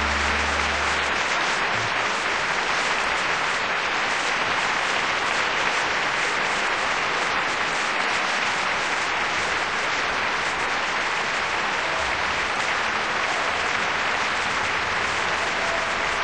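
Large audience applauding steadily. The song's last low held note dies away in the first second.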